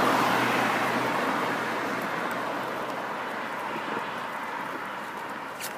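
A car passing on the road, its tyre and engine noise loudest at first and fading steadily away over several seconds.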